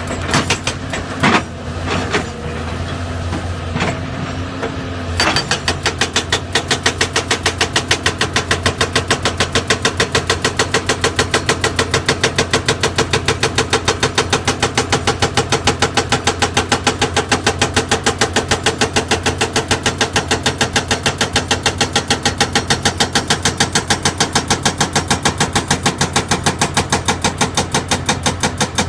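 Komatsu PC200 excavator's hydraulic breaker hammering rock, over the excavator's running diesel engine. For about the first five seconds only the engine and a few single knocks are heard; then the breaker starts a rapid, even train of blows.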